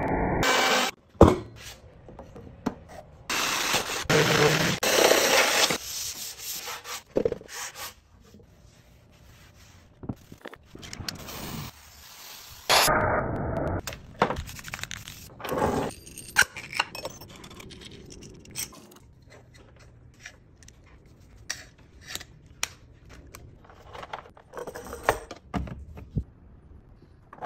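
Rubbing and scraping on wooden boards in several stretches, loudest about three to six seconds in and again around thirteen seconds, with a sharp knock about a second in. Softer wiping of stain onto pine with a rag in the quieter middle, and small clicks from handling brass lamp fittings near the end.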